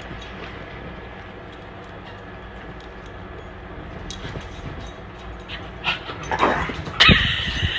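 Cat vocalising while chewing a piece of green vegetable held in a hand: a steady low growl-like sound, then two louder whining cries near the end, the second the loudest.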